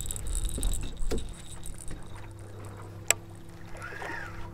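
A boat motor hums steadily, with a low rumble in the first second or so and a single sharp click about three seconds in.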